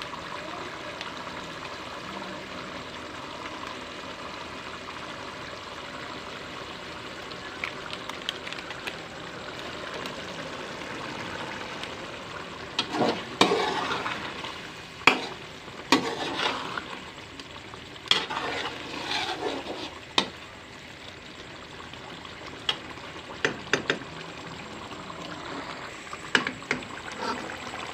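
Chicken karahi curry sizzling steadily in a metal karahi. From about halfway through, a metal ladle stirs through it, scraping and clinking against the pot several times.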